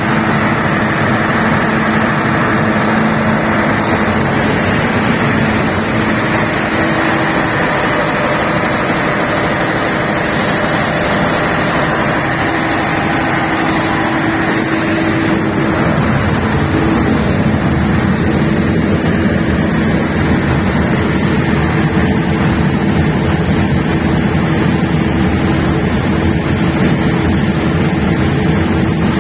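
A 500 kVA diesel generator running steadily and loudly, with a steady hum. About halfway through, its sound turns deeper, with less treble and more low rumble.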